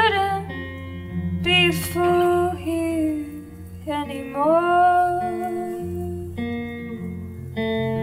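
A woman singing a slow song over a Telecaster-style electric guitar playing sustained chords. Two sung phrases, the second ending in a long held note.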